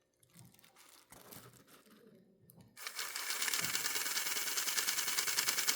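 Rivarossi Casey Jones 4-6-0 model locomotive's small electric motor and gear train starting up about three seconds in and running steadily with a fast, even clicking buzz. Before that, only a few faint light clicks.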